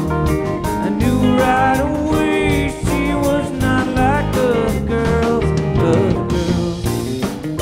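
Live rock band playing, with acoustic and electric guitars under a male lead vocal, the melody sliding between notes.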